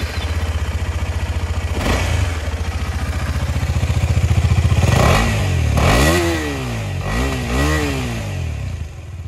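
KTM 250 Adventure's 248 cc single-cylinder engine idling, heard at its silencer, then revved several times from about halfway through, each rev rising and falling before it settles back to idle near the end.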